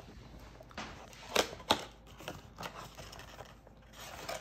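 Cardboard Panini Mosaic Football blaster box being handled and its end flap pried open: soft rustles and small clicks, with two sharp taps in quick succession about a second and a half in.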